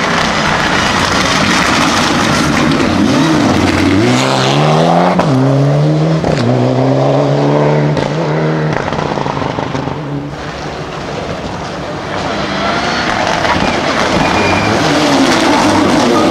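Mitsubishi Lancer Evo IX rally cars' turbocharged 2.0-litre four-cylinder engines pulling hard through the gears, the note climbing and then dropping sharply at two quick upshifts about five and six seconds in. Near the end another Evo's engine builds as it approaches.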